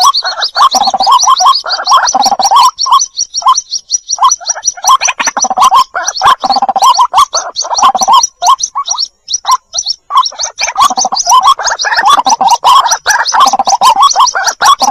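Recorded lure calls of white-breasted waterhens: loud, rapidly repeated adult calls with a fast run of high chick peeps above them, broken by abrupt gaps.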